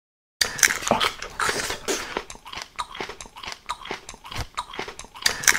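Crisp crunching and chewing sounds: a dense, irregular run of crackles, as of crunchy food being bitten and chewed, starting about half a second in.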